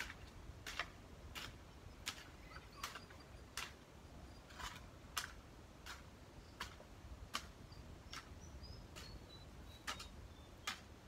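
Long-handled garden hoe chopping into soil, a short crisp strike roughly every three-quarters of a second, about a dozen in all, with a longer pause near the end.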